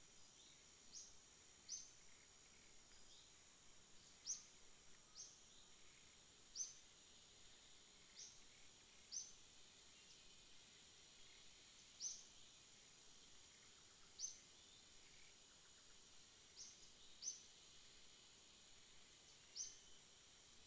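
Faint outdoor ambience: a steady high insect drone, with short high chirps repeating irregularly every second or two.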